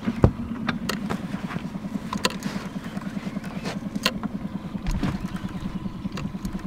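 A boat motor running steadily at low revs, a fast even pulsing hum. A few sharp knocks and clicks sound on the boat over it.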